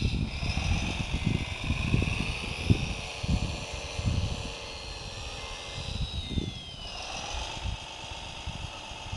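Electric motors and gearing of a 1/14-scale RC Komatsu WA470-6 wheel loader whining as it drives. The pitch rises in the first second and falls away about two-thirds of the way through, over the gusty rumble of wind buffeting the microphone.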